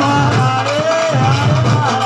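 Loud Tamil folk music: a held melody line with gliding notes over a steady drum beat.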